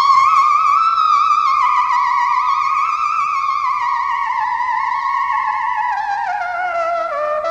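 Trumpet holding one long high note with a wide vibrato, sliding slowly downward in pitch for about seven seconds and stopping near the end.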